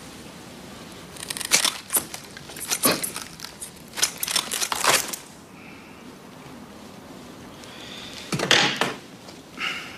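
Scissors cutting open a sealed document folder, in four short bursts of snipping and rustling.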